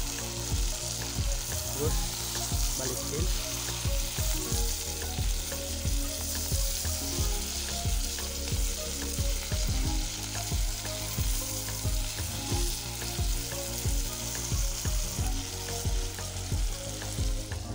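Water spinach sizzling in a hot metal pot as it is stir-fried, with a wooden stick stirring it and knocking against the pot a few times a second.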